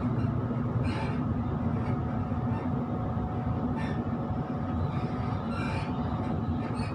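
Electric passenger train heard from inside the carriage: a steady low rumble of wheels on the track, broken by four brief high wheel squeals.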